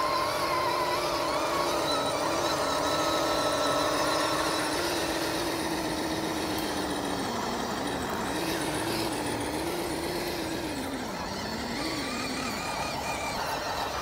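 Small-scale RC crawler trucks' electric motors and gearboxes whining as they crawl through shallow mud and water, the pitch rising and falling with the throttle.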